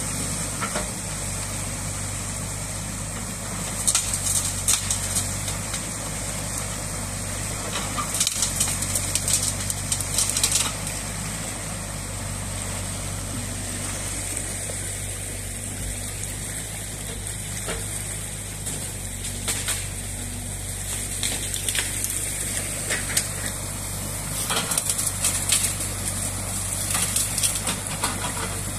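New Holland Kobelco E 50.2 C compact excavator's diesel engine running steadily at idle, over the rush of water pouring through the breached beaver dam. Several louder crackling, noisy bursts come and go over the steady hum.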